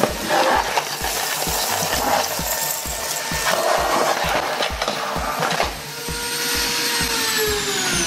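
Kärcher VC 5 Cordless stick vacuum running on maximum power over tile, sucking up small plastic pellets that rattle and click through the floor nozzle and tube. About six seconds in the noise drops and the motor whine falls steadily in pitch, winding down.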